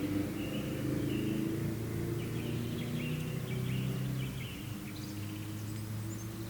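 A low droning hum of several steady tones, with short high chirps over it; the hum drops a little in level about four and a half seconds in.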